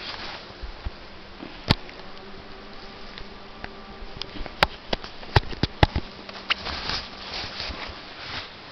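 Pickup truck engine running with a steady hum as the truck rolls slowly through shallow snow, with a few sharp clicks scattered through.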